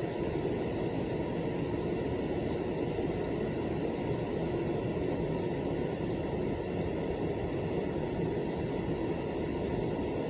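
Freight train cars rolling past on the rails, a steady rumble that holds even throughout.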